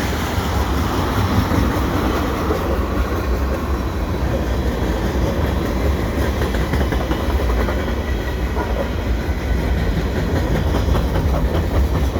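Freight cars of a CN mixed freight train rolling past: a steady rumble of steel wheels on rail, with repeated wheel clicks over the rail joints through the second half.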